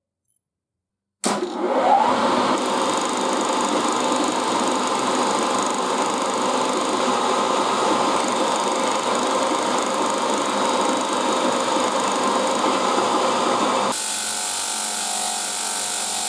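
An electric power tool or workshop machine starts with a short rising whine, then runs steadily. About 14 seconds in it cuts abruptly to a hissier, thinner machine sound.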